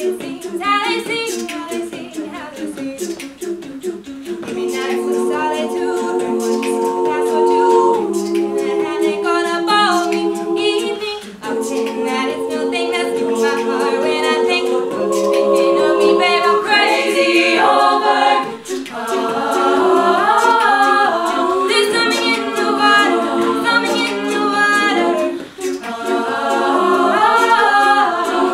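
All-female a cappella group singing in several voice parts, with no bass line. Short rhythmic sung notes open, then the voices hold chords that change every few seconds.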